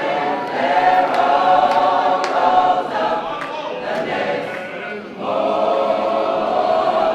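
Choir singing on long held notes, with a short break about five seconds in before a long held chord.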